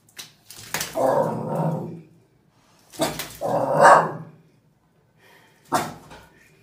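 A live carp flopping on a tiled floor, with sharp slaps, while a dog barks in two longer rough bursts.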